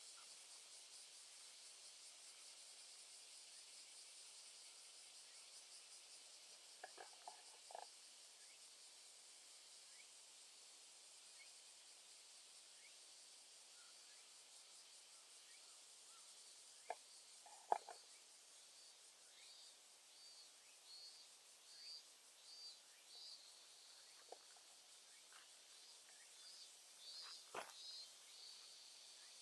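Faint insect chorus in a summer field: a steady, high-pitched chirring, joined from a little past halfway by a repeated chirp. A few short clicks or knocks stand out, the loudest a little past halfway.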